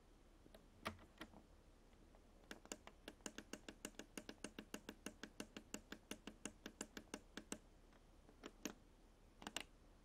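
Push buttons on a Miele W 5964 washing machine's control panel clicking as the programme menu is scrolled: a couple of single clicks, then a quick even run of about five clicks a second for some five seconds, then a few more clicks near the end.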